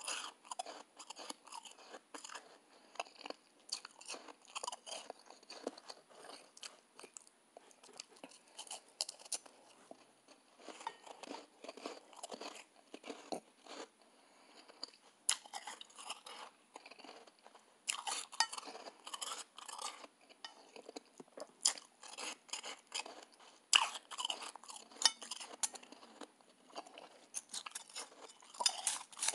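Close-up chewing and crunching of a mouthful of soft, snow-like ice: a dense run of irregular crisp crackles, with louder bursts now and then.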